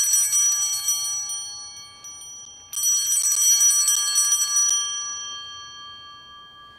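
Altar bells (sanctus bells) rung at the elevation of the consecrated bread, marking the consecration. Two shaken rings about three seconds apart, each a jangle of several high bell tones that then fades out.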